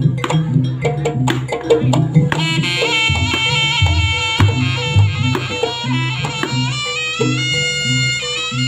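Jaranan accompaniment music: kendang drums and sharp wood-block-like strokes beat a repeating pattern, and about two seconds in a reedy wind melody with sliding notes, typical of the slompret, joins over the drums.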